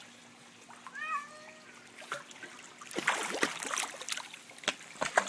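Domestic cat giving one short meow about a second in, followed from about three seconds in by a burst of noisy scuffling or splashing and a few sharp clicks.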